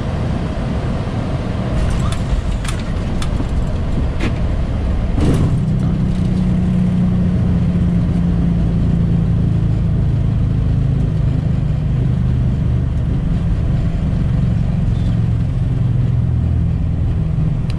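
Boeing 737-800 landing roll heard from the cockpit: a steady rumble with several sharp knocks in the first few seconds. About five seconds in comes a sudden thump, then a louder, steady low drone with several held tones, typical of the CFM56 engines spooling up into reverse thrust.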